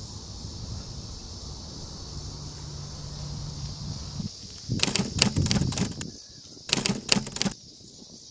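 Steady high insect buzz from grass, with a low rumble under it. Twice, about halfway and again near the end, loud bursts of rapid crackling clicks break in, each lasting around a second.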